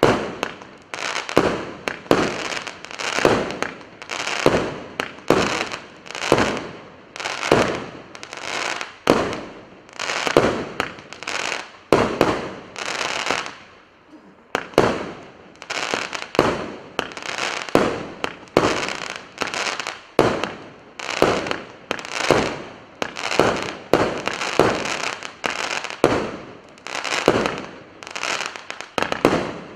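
Multi-shot combination firework cake of 25–30 mm shots firing in rapid succession. A sharp report comes about every half second to second, each followed by a fading crackle of sparks. There is a brief lull about twelve seconds in.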